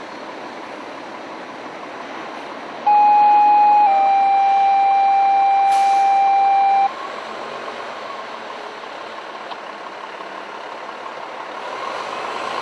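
Two-tone fire-dispatch page over the radio: a steady pure tone for about a second, then a slightly lower tone held for about three seconds, cutting off sharply. It is the loudest sound here, over the steady running noise of the fire engine.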